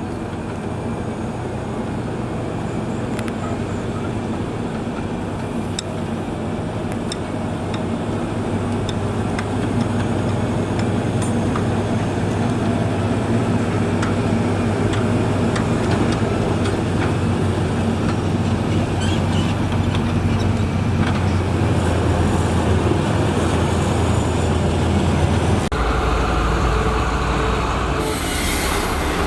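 Diesel engine of heavy road-building machinery running steadily under load and gradually growing louder, with a few light clicks and knocks. Near the end the engine note changes and a brief hiss follows.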